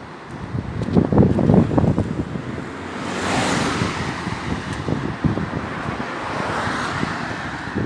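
Strong wind gusting: low buffeting on the microphone about a second in, then two long rushing gusts that swell and fade.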